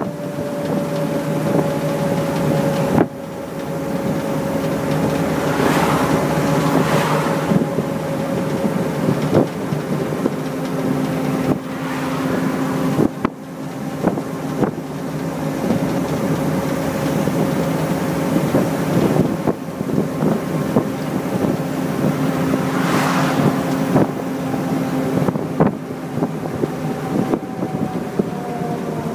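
1928 Graham Brothers truck driving down the road: the engine and drivetrain run steadily with a tone that drifts slowly lower, heard from the open cab with wind buffeting the microphone and occasional knocks and rattles from the body.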